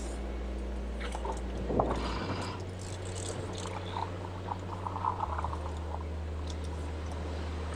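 Jeep crawling slowly on an off-road trail: a steady low engine drone, with scattered creaks, clicks and squelching mud and water noises, busiest about a second in and again around four to five seconds in.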